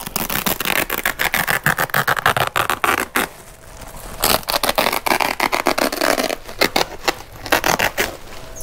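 Woven plastic sack wrapping rustling and scraping as it is pulled and worked back off a bale of bedsheets packed against cardboard. The crackly scraping pauses briefly about three seconds in, starts again, then thins to scattered clicks near the end.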